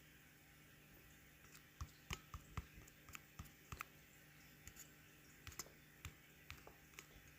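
Light, irregular clicks and taps, about twenty of them, starting about a second and a half in: fingers pressing the keys and touchscreen of a handheld smart-home control panel while navigating its menus. A faint steady hum lies underneath.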